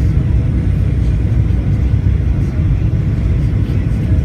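Boeing 737 cabin noise heard from a window seat over the wing: the steady low rumble of the jet engines and airflow during the approach to landing.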